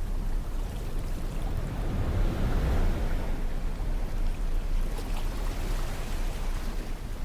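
Sea surf on a beach: a steady low rush of breaking waves, with one wave swelling up and washing in about two to three seconds in.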